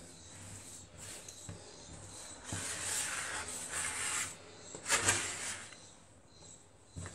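Hands working soft brioche dough on a floured worktop: soft rubbing and rustling, louder in two stretches around the middle.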